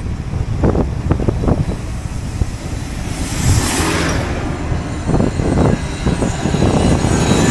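Wind rushing over a handlebar-mounted camera's microphone on a bicycle rolling fast downhill on asphalt, with a steady low rumble and a run of short knocks and buffets. A brief high hiss comes about three and a half seconds in.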